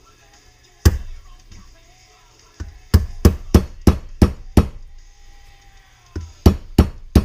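Sharp hammer taps on a pin punch, driving out the pin that holds a sear in a Zabala double-barrel shotgun's action: one tap, then a quick run of six at about three a second, then three more near the end.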